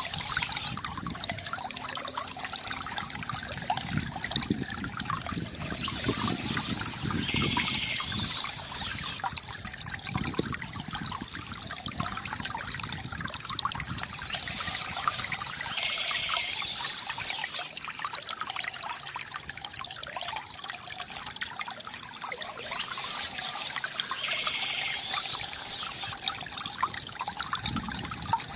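A stream trickling and running steadily, with a short high bird call recurring about every eight seconds.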